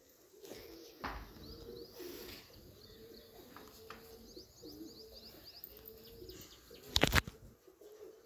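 Pigeons cooing over and over, with faint high chirps of small birds. A single sharp thump about seven seconds in.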